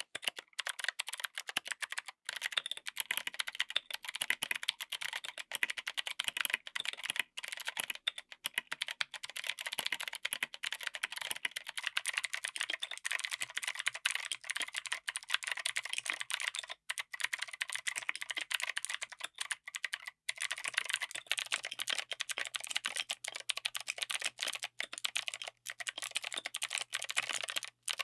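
Clicky mechanical keyboard switches being typed on in a fast, continuous run of sharp clicks with only brief pauses.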